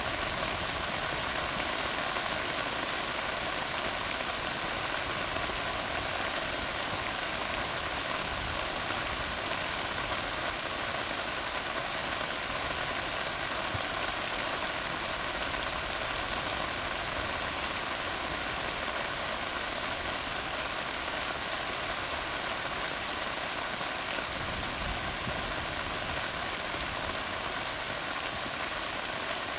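Steady rain falling on a tar road: an even hiss of many drops hitting the wet asphalt, with fine individual drop ticks and no let-up.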